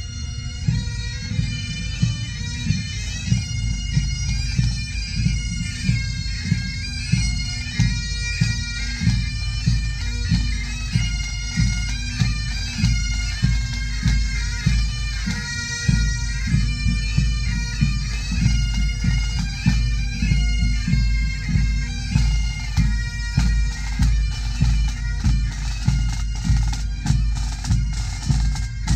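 Pipe band playing a march on the move: Highland bagpipes sounding their steady drone and melody over a regular beat from the band's drums.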